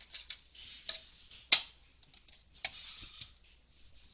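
Handling noises of a speedcube and its packaging: short plastic clicks and brief rustles, with one sharp click about a second and a half in.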